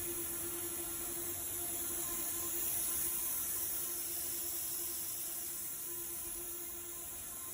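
Steady high hiss with a low, even hum underneath, starting abruptly.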